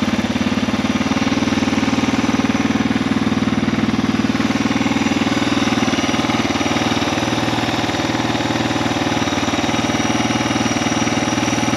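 2022 Suzuki DR650SE's single-cylinder engine idling steadily through its exhaust, a fast, even run of low firing pulses.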